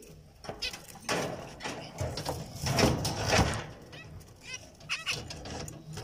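Zebra finches calling with short repeated nasal beeps, clearest near the end, with a stretch of loud rustling noise in the middle.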